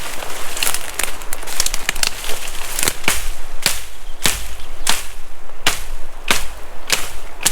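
Kukri knife hacking at brush and branches: a string of sharp chopping strokes, irregular at first, then from about three seconds in a steady blow roughly every two-thirds of a second.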